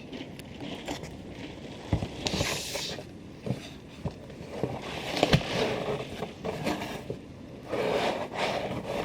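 Typhoon wind gusting against the house in irregular swells, with scattered knocks and rattles.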